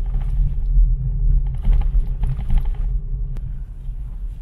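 Car driving along a road, heard from inside the cabin: a steady low rumble of engine and tyres with a faint constant hum.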